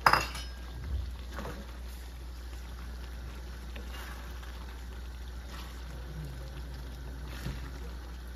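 Wooden spatula stirring a simmering igado stew in a wok, with a sharp clack right at the start and a softer one about a second and a half in, over a steady low hum.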